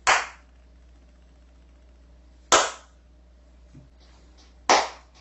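Slow clapping: three single loud hand claps about two and a half seconds apart, each with a short room echo.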